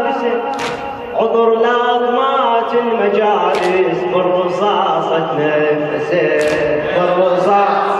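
A young man's solo voice chanting a Shia Muharram latmiya (Husseini lament) into a microphone, in long, drawn-out lines whose pitch slides and wavers between held notes.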